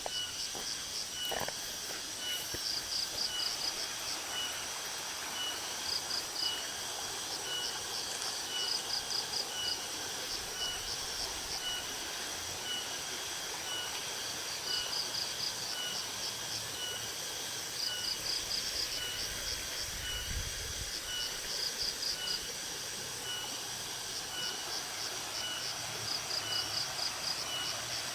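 Insects chirping outdoors: a steady high buzz with short pulsed trills repeating every second or two, and an evenly ticking lower call throughout, over a steady background hiss.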